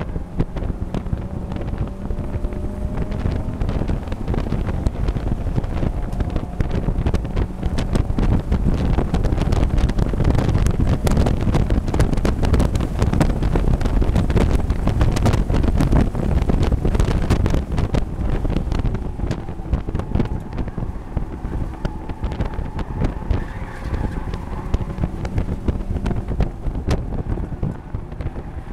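Mazda MX-5 race car's four-cylinder engine running at racing speed, heard from the open cockpit under heavy wind buffeting on the microphone, which is loudest through the middle. The engine note climbs under acceleration near the start and again past the middle.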